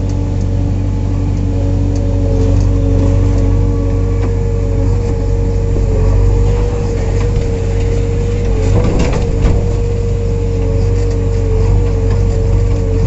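JCB 3DX backhoe loader's diesel engine running under load, heard from inside the cab while the backhoe digs, with a steady whine that wavers slightly in pitch. A few sharp clanks come about nine seconds in.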